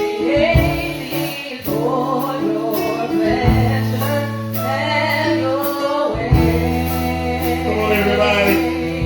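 Gospel praise music: a group of singers over sustained keyboard chords, bass and a steady beat with cymbal strikes.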